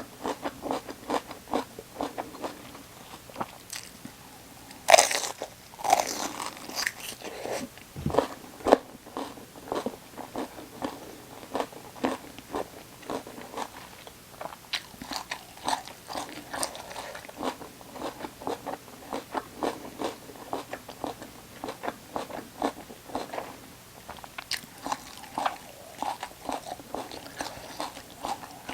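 Close-miked chewing of crisp raw vegetables: a continuous stream of wet, crisp crunching clicks. Loud crunchy bites come about five and eight seconds in.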